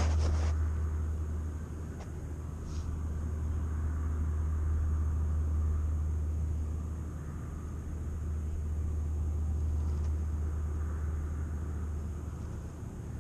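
A steady low rumble that swells and fades slowly over several seconds, with a few short clicks right at the start.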